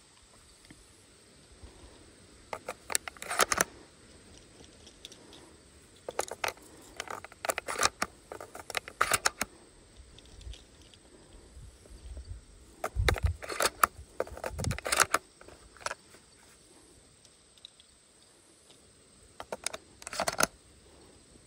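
Clicks and clacks of a Tavor TS12 12-gauge shotgun's controls and polymer body being handled and worked, coming in several quick bunches with pauses between.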